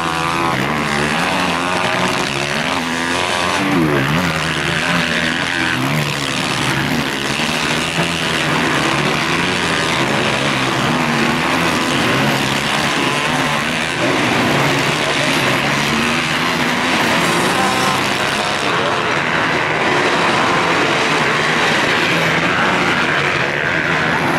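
A pack of motocross bikes racing, many engines revving up and down at once in overlapping rising and falling whines.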